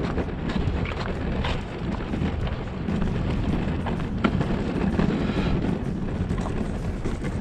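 Hand cart rolling over a rough concrete quay: a steady low rumble with scattered small rattles and knocks, and wind buffeting the microphone.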